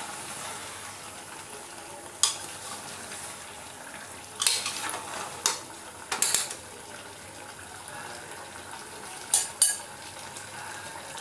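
Chicken and onion masala sizzling as it is stir-fried in a pan to a dry kosha. A spatula scrapes and knocks against the pan a handful of times.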